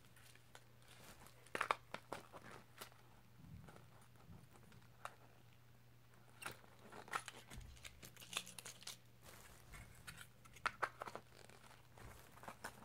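Cardboard and plastic fishing-lure packaging being handled and opened, giving scattered crinkles, rustles and small clicks, over a faint steady low hum.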